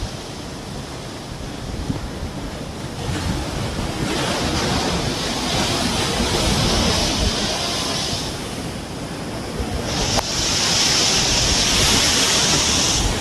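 Small sea waves breaking and washing up the shore, in two surges of hiss: one building from about three seconds in and easing off near eight seconds, a second coming in sharply at about ten seconds.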